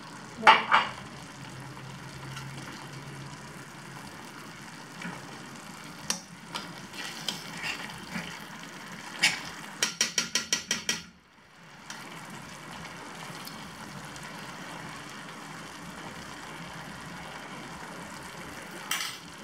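Paneer butter masala gravy cooking in a pan with butter just stirred in, a steady sizzle and simmer. Scattered clicks come over it, then a quick run of about eight clicks around ten seconds in, after which the sound cuts out for a moment.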